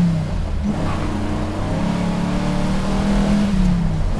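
Chevrolet 409 big-block V8 of a 1962 Bel Air accelerating hard, heard from inside the cabin. The engine note dips briefly about half a second in, then climbs for a couple of seconds before falling away near the end, as at a gear change.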